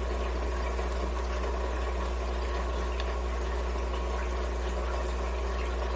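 Steady low electrical hum with a faint even hiss, unchanging throughout: the recording's background noise, with no other sound.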